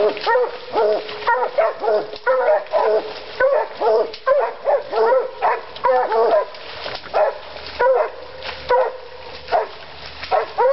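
Bluetick coonhounds and a cur baying a wild boar hog: barks over one another in a steady, unbroken stream, about two a second.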